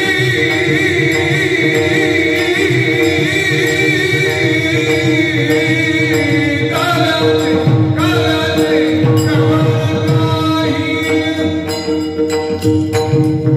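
Warkari kirtan music: a chorus of men singing a devotional tune, over a steady held drone, the clash of small brass hand cymbals (taal) and mridang drumming.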